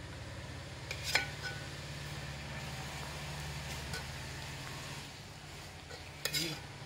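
A metal spoon clinks against a steel bowl of thick masala, once about a second in with a short ring and again in a quick cluster near the end, over a steady low mechanical hum.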